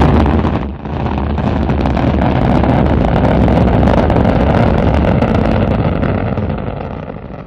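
Rocket engine firing as a sound effect: it starts suddenly and loud, dips briefly under a second in, then holds a steady deep rushing rumble that fades away near the end.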